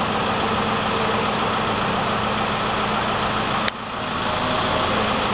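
Crane engine running steadily with a low, even hum. A single sharp click comes about three and a half seconds in, after which the sound dips and builds back up over a second or so.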